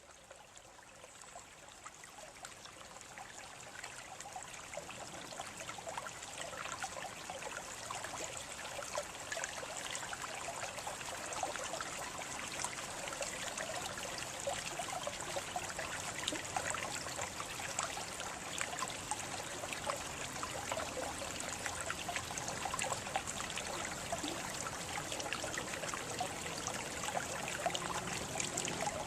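Water trickling and babbling steadily with many small splashes, fading in over the first several seconds.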